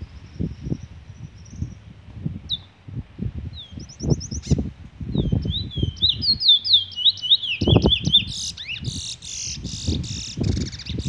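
A male Trinidad bullfinch (chestnut-bellied seed finch) singing: a few single whistled notes, then a quick run of sharply falling whistles, ending in a buzzy, rasping phrase. An irregular low rumble, like wind on the microphone, runs underneath.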